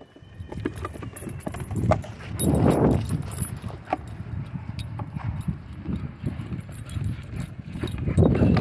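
A German Shorthaired Pointer panting and moving about right at the microphone, in an irregular rhythm with louder surges, while its collar hardware jingles and clicks a few times.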